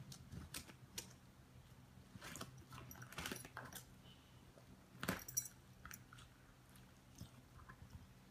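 Puppy chewing on a bunch of leafy sticks: faint, irregular crackles and snaps of the twigs in its teeth, loudest about five seconds in.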